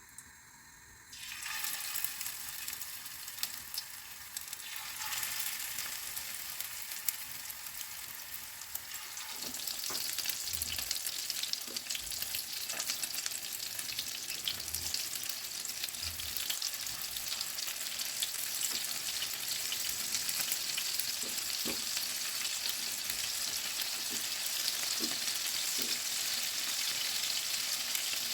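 Food frying in hot oil in a pan. The sizzling starts suddenly about a second in and grows louder partway through, with a few soft knocks in the middle.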